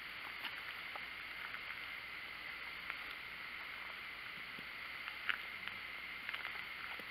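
Quiet night-time woodland background: a steady high hiss with a few faint, scattered clicks and ticks, the clearest about five seconds in.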